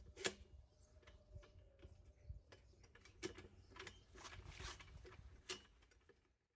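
Faint clicks and scraping of a bench drill press's head being slid and turned on its steel column during assembly, with a few sharper metal knocks.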